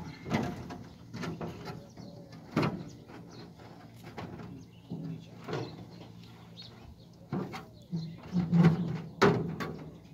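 Irregular clicks and knocks from hands working the fuse-switch units inside a low-voltage distribution feeder pillar, the loudest knocks a little before the end.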